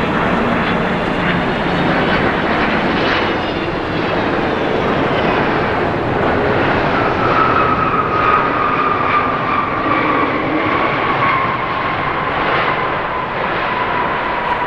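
Jet engines of a Boeing 777-300 airliner passing by, a loud steady rush of engine noise. About halfway through, a whine comes in and slides slowly down in pitch.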